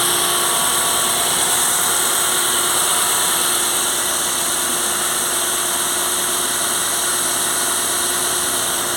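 Ford Fiesta engine running steadily without any squeal, now that its worn water pump has been replaced.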